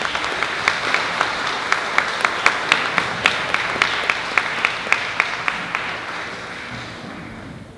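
Audience applauding, with sharp single claps from someone close standing out above the crowd's clapping. The applause dies away over the last second or so.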